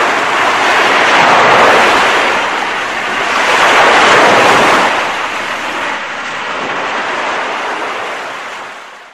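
Sea waves breaking and washing up a pebble beach, a steady surf noise that swells louder about a second and a half in and again about four seconds in, then fades out near the end.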